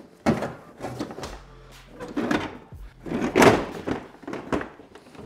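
Handling noise from a Torx bolt being worked out of a BMW E60 headlight bracket by hand: a run of about five knocks and scrapes, the loudest about three and a half seconds in.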